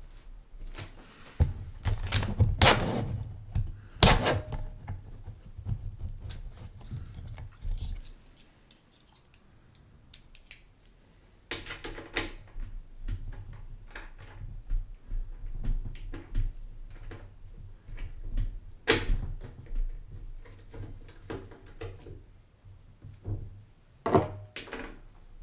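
Computer hardware being handled: scattered clicks, knocks and a few louder thunks, with quieter stretches between.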